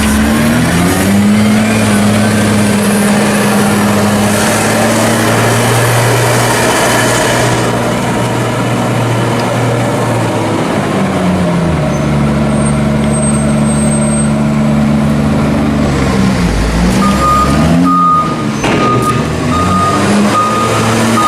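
Diesel engine of a JCB loader working at a silage clamp, revving up and down as it moves a load of chopped maize. A reversing alarm beeps steadily in the last few seconds.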